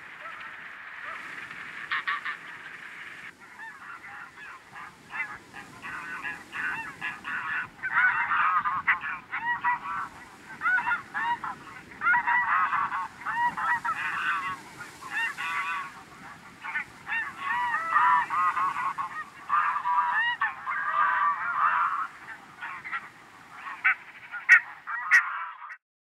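A large flock of greater white-fronted and barnacle geese calling all at once, a dense chorus of overlapping honks and yelps that grows busier partway through. A few sharp clicks sound near the end, and the sound cuts off just before the end.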